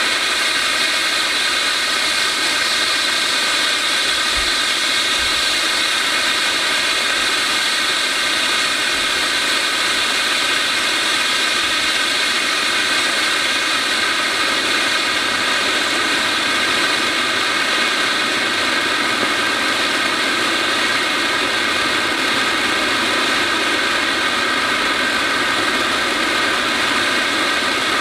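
A 13-inch cone fountain firework burning, giving off a steady, even hissing rush as it jets sparks.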